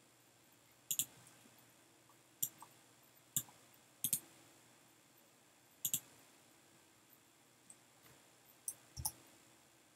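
Scattered sharp clicks of a computer mouse and keyboard, about eight in all, several in quick pairs.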